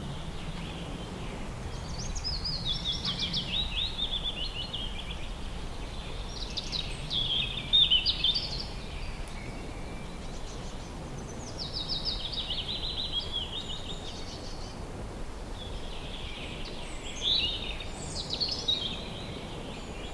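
A songbird singing the same falling phrase four times, each about two seconds long and about every four to five seconds, over a steady low background noise.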